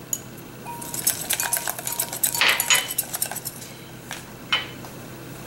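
Wire whisk clinking and scraping against the sides of a ceramic mixing bowl as an egg mixture is stirred, in irregular clicks with a few louder knocks about halfway and near the end.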